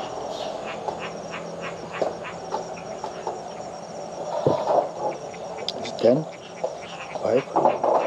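Insects trilling, a fast, steady high pulsing chirp, with scattered short chirps around it. A vehicle's engine hum fades out in the first second, and a few louder sliding voice-like calls come in the last few seconds.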